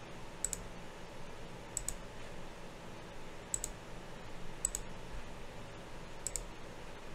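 Computer mouse button clicks, about five over the stretch, each a quick double tick of press and release, over a faint steady background hiss.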